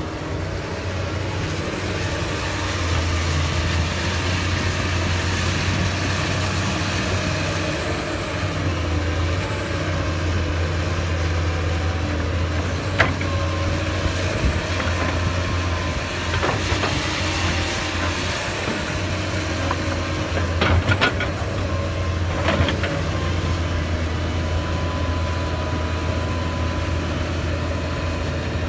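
Doosan DX225LCA crawler excavator's diesel engine running steadily as the machine works, with a few sharp clanks around the middle.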